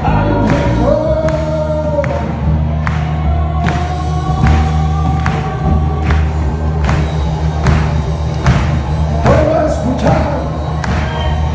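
Music: a song with sung voices held in long lines over a steady beat of about two strokes a second.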